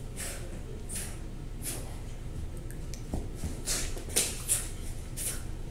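Short swishing and scuffing sounds of a children's toy-sword play fight on a carpeted floor, a few strokes at first and coming faster in the second half.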